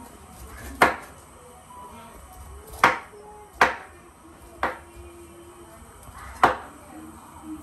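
Kitchen knife cutting through a pineapple and striking a wooden chopping board: five sharp knocks at uneven intervals.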